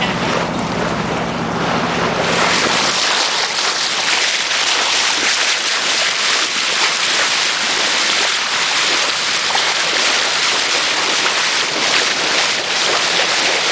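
A moving boat's bow wave rushing and splashing against the hull, with wind on the microphone. A steady engine hum is heard for about the first two seconds, then the rushing water takes over.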